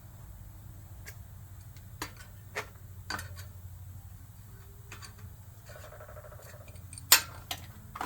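Sharp metallic clicks and clinks as a crescent wrench meets an e-bike's front disc brake rotor while the bent rotor is tweaked straight. The loudest click comes about seven seconds in, just after a brief rubbing rasp, over a steady low hum.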